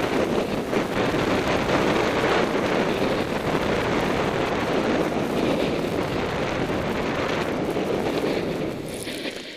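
Wind buffeting a helmet-mounted camera's microphone during a fast snowboard run: a loud, steady rush that fades near the end.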